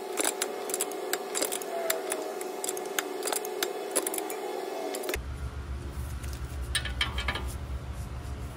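Ratchet and wrench clicking and clinking on metal as a tie rod end nut is tightened, over a steady hum. About five seconds in the hum cuts to a low rumble, with a few more metal clicks soon after.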